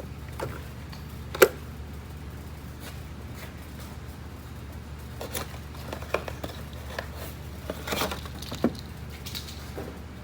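Scattered clicks and light handling noises as old spark plug wires are twisted and pulled off and their plastic loom clips worked open, with one sharp click about a second and a half in and small clusters of clicks later, over a steady low hum.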